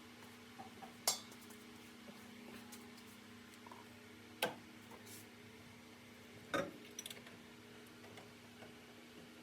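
A few sharp metallic clinks and knocks of tools and steel parts being handled, about a second in, again near four and a half seconds, and a short cluster near seven seconds, over a faint steady hum.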